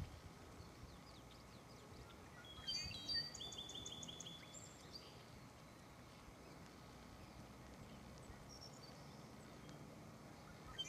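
Wild birds singing: a burst of quick trilled and chirped notes from about two and a half seconds in, lasting a couple of seconds, then a few faint chirps later, over a quiet steady outdoor background.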